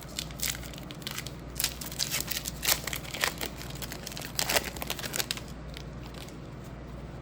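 Baseball cards and their packaging being handled, a run of crinkling and rustling strokes that dies down about five and a half seconds in.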